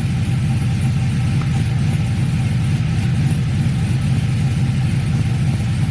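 Chevy Silverado's cammed V8 idling steadily.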